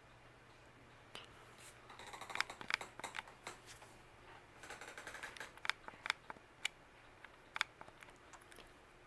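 Hampton Bay Cameron II ceiling fan running on low, with a faint steady hum and irregular clicking and ticking in two clusters, about two seconds in and again around the middle.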